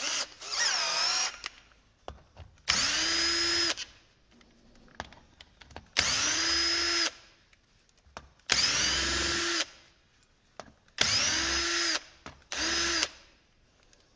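Cordless drill-driver undoing the screws that hold a Husqvarna 136 chainsaw's cylinder to its crankcase. It runs in about six short bursts of about a second each, its motor whining up to speed at the start of each.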